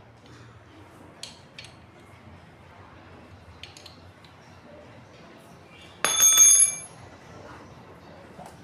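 Metal parts being handled: a few light taps and clicks, then about six seconds in a loud metallic clink that rings for under a second.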